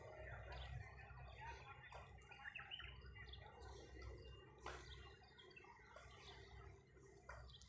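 Faint birds chirping, short scattered chirps over a low background rumble, with a single sharp click a little under five seconds in.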